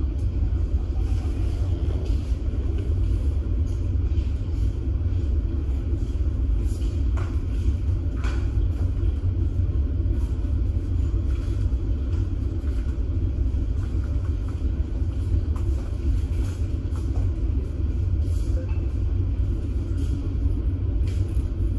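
A ship's engines running: a steady low rumble that does not change, with a few faint clicks.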